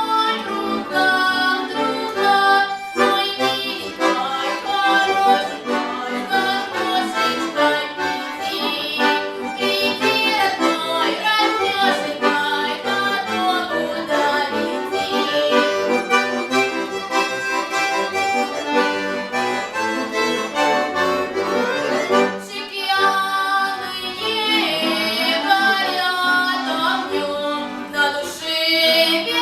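Accordion playing an instrumental interlude of a Russian folk-style song, a quick melody over chordal accompaniment.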